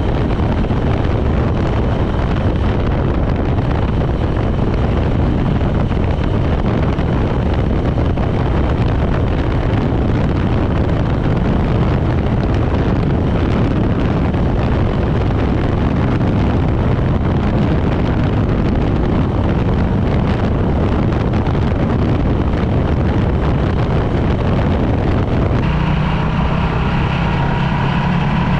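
Honda CB400SS single-cylinder motorcycle engine running on the move, half buried under heavy wind rush on the microphone. Near the end the wind eases and the engine's steady note comes through more clearly.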